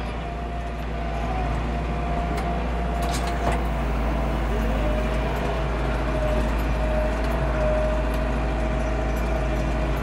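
The Landini Blizzard 65's Perkins 4.0-litre four-cylinder diesel running steadily, with a thin steady whine over it. A couple of light knocks come about three seconds in.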